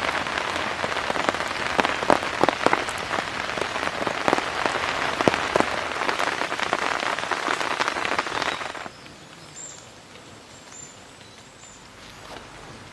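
Heavy rain pattering on a polycotton tarp, with many separate loud drop hits. About nine seconds in it cuts off abruptly, leaving a much quieter forest background with a few faint, high, short chirps.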